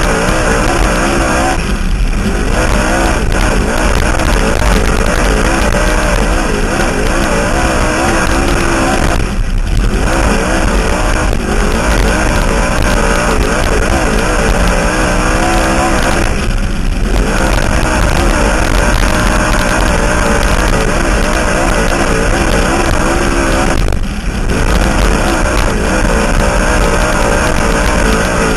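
Dirt-track race car engine at racing speed, loud and wavering in pitch as the revs rise and fall, with the note dropping briefly about every seven seconds as the car slows for the turns.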